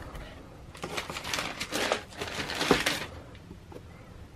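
Tissue paper crinkling and rustling as it is pulled back from a pair of sneakers in a cardboard shoebox, starting just under a second in and lasting about two seconds, with a few sharp crackles.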